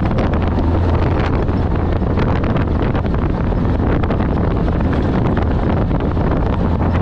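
Off-road race vehicle driving hard, heard onboard: a steady low engine drone under heavy wind buffeting on the microphone, with frequent knocks and rattles from the rough terrain.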